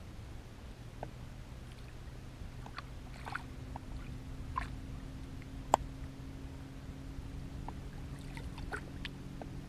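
Water lapping and small splashes around a fishing boat, with scattered light knocks and one sharp click near the middle. A steady low hum comes in a couple of seconds in.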